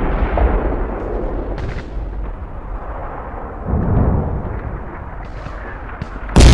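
Battle sounds of artillery explosions and gunfire: the rumble of one blast dies away, another boom swells and fades about halfway through, and a few single sharp shots crack near the end.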